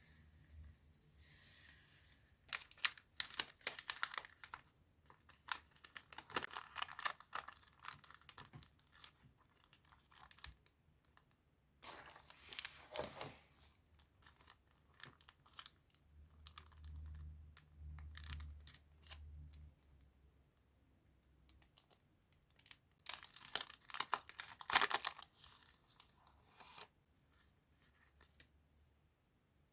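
Packaging being torn open and crinkled by hand, in three bouts of crackling with quiet pauses between, the longest early on and another near the end.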